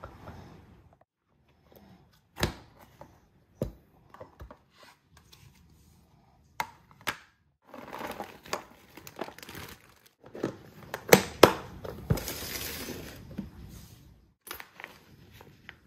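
A crinkly plastic snack bag rustling as its contents are poured into a plastic food container, among sharp clicks and knocks of the plastic container and lids being handled on a stone countertop.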